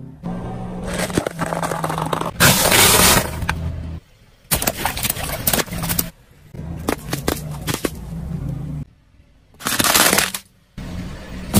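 A car's engine idling while its tyre rolls over objects on asphalt and crushes them: a string of loud cracks and crunches of breaking plastic and packaging. The loudest bursts come about two and a half seconds in, about five seconds in and about ten seconds in, with short silent breaks between them.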